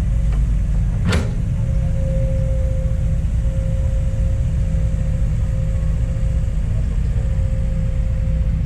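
Kobelco SK200 hydraulic excavator's diesel engine running steadily with a low rumble and a steady hum, and a single sharp knock about a second in.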